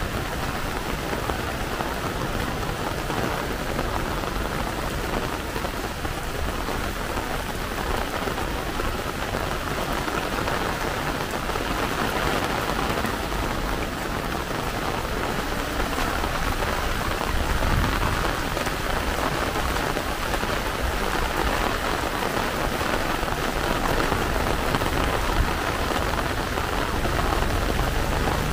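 Rain falling steadily, a dense even hiss of drops striking the ground and surfaces.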